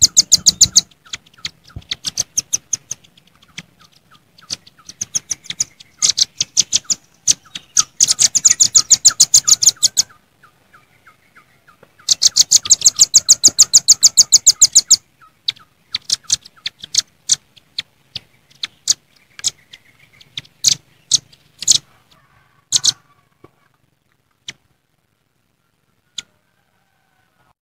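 Velvet-fronted nuthatches calling noisily, the combined challenge calls of several birds used as a lure. Fast rattling trains of sharp, high chips come at about ten a second in several bursts through the first fifteen seconds. Then the calling thins to scattered single chips and dies away near the end.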